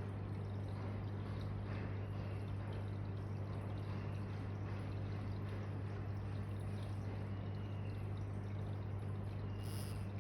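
Aquarium filter or pump running: a steady low hum with a constant trickle of water.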